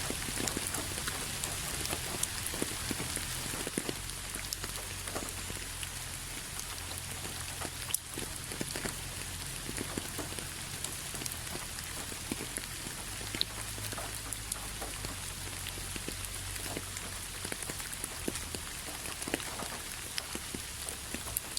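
Steady rain falling: a constant hiss with many separate drops ticking sharply on a surface.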